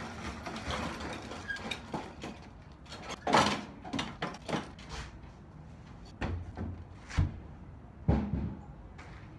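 A run of knocks and clatters as a lawn mower is wheeled over a doorway into a shed and stowed, the loudest about three seconds in, then the door shutting near the end.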